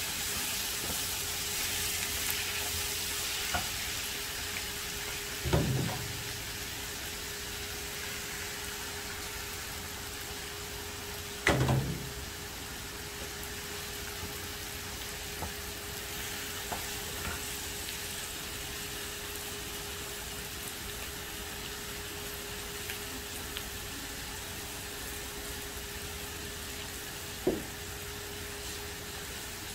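Minced meat and zucchini filling sizzling in a non-stick frying pan over a gas flame as it is stirred with a wooden spatula. A few sharp knocks stand out, the loudest about eleven seconds in and another near the end.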